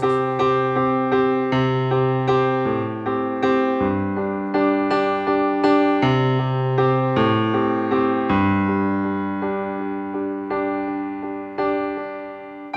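Keyboard instrumental break in a song: repeated chords struck about twice a second over a bass line that shifts every second or two, growing softer toward the end.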